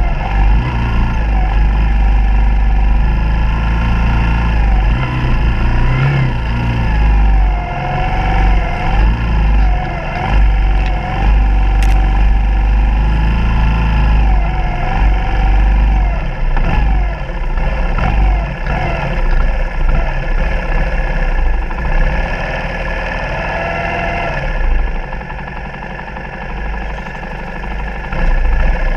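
Suzuki DR200's single-cylinder four-stroke engine running while the bike is ridden, its pitch rising and falling with the throttle, with wind rumbling on the microphone. Near the end it eases off and gets quieter as the bike slows.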